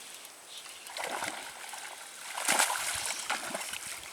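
Hooked snakehead splashing at the water's surface as it is fought, in two main bursts about a second in and about two and a half seconds in.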